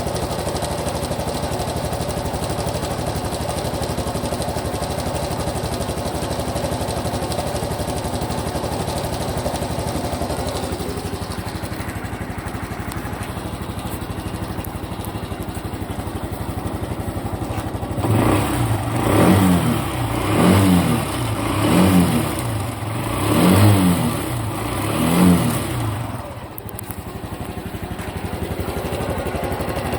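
Honda Super Cub Pro's single-cylinder engine idling, then revved in five quick blips about a second and a half apart before settling back to idle. The engine is being checked for an abnormal noise that remains after an oil change meant to cure it.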